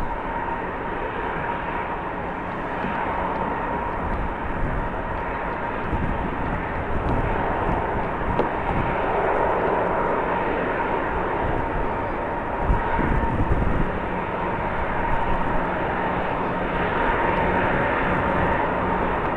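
Jet airliner engines running steadily, a constant whine over a broad rush, with uneven low rumbling from strong wind on the microphone and a few brief louder bumps about thirteen seconds in.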